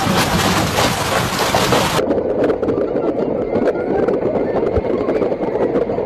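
Large hailstones and heavy rain pelting down in a dense patter of impacts, with wind. About two seconds in, the sound cuts abruptly to a duller, muffled noise.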